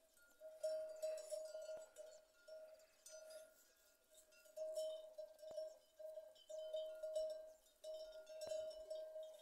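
Cowbell on a grazing cow clanking at irregular moments as the animal moves its head, one ringing tone that swells and dies away again and again.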